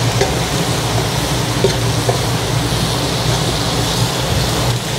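Chopped vegetables stir-frying in a nonstick wok: a steady sizzle over a low hum, with a few short clicks and scrapes of a spoon against the pan as the vegetables are tossed.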